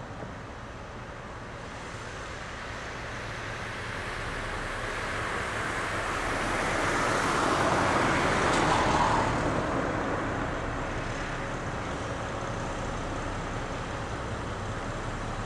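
Low, steady rumble of the BB 69000 diesel-electric freight locomotives hauling the heavy convoy in the distance. A passing vehicle's noise swells to a peak about eight seconds in, then fades.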